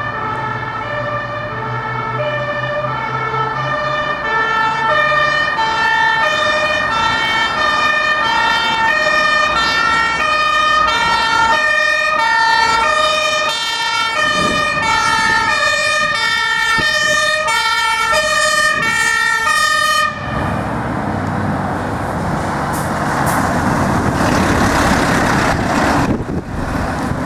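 A German fire truck's two-tone siren (Martinshorn) alternates steadily between two pitches. About 20 seconds in it cuts off, and the loud noise of the truck passing close by follows.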